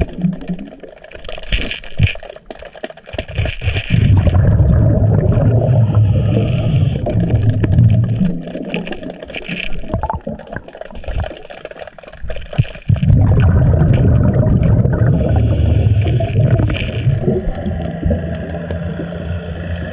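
Underwater sound of scuba diving: exhaled bubbles from the regulator gurgle up in several short surges over a heavy low rumble of water, with scrapes from hands moving stones on the riverbed.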